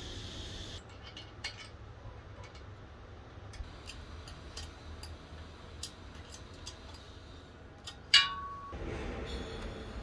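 Hand tools on bicycle metal parts: scattered light metallic clicks and taps of a spanner and hex key working bolts at the rear axle and luggage rack. About eight seconds in, one loud ringing metal clink.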